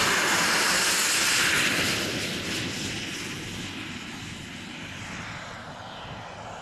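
Twin JetCat P120 gas turbines of a quarter-scale model English Electric Lightning on a fast pass. A loud rushing jet noise peaks in the first two seconds, then fades away as the model moves off.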